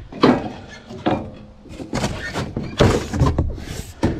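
A series of thunks and scuffing scrapes as a large cardboard side panel of a shipping crate is pulled off and handled.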